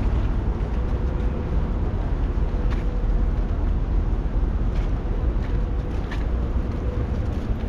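Steady low rumble of idling bus engines, with a faint steady hum over it and a few faint ticks.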